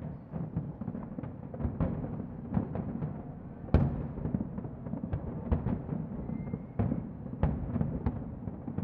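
Distant fireworks going off in quick succession: a continuous low rumble of bursts broken by sharp bangs, the loudest about four seconds in and several more in the last few seconds.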